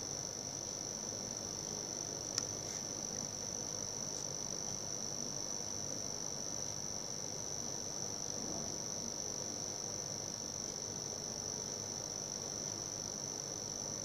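Cooler Master V700 power supply giving off a steady high-pitched buzz, the fault noise its owner hears whenever the PSU's fan spins. A single click sounds about two and a half seconds in.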